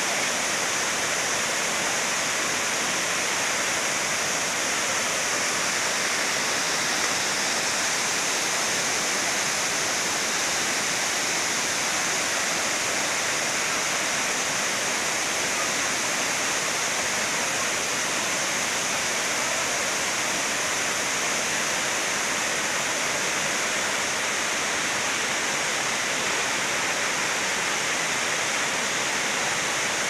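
Tirathgarh Falls on the Kanger River: white water pouring over stepped rock ledges and churning in the pool below, a steady, hissing rush that does not change.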